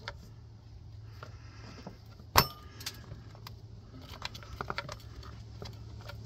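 Small metal clinks and clicks as a bolt and washer are handled at an engine's timing cover, with one loud, sharp clink about two and a half seconds in and a quick run of lighter clicks a couple of seconds later, over a steady low hum.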